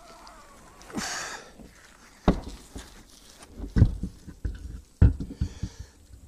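Hand work on an off-road vehicle's wheel and axle: three loud knocks about a second and a half apart, with smaller clinks between them. A man's hard exhale comes about a second in, from the strain of the work.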